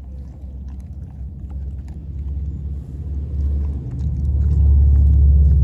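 A blue Staffordshire bull terrier gnawing a rack of raw beef rib bones, making small scattered crunching clicks. Under it a low rumble builds and is loud in the second half.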